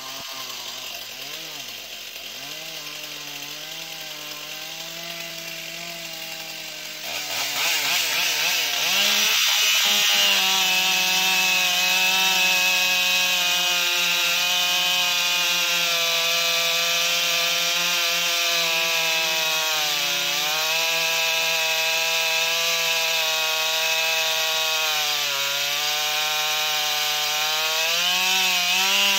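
Stihl MS661 two-stroke chainsaw with a 36-inch bar and full-skip chisel chain cutting hard oak. For about the first seven seconds it runs quieter with a wavering note, then it goes up to full throttle and holds a loud, steady cutting note with the hiss of chips. Its pitch dips briefly a few times as the chain loads up in the wood.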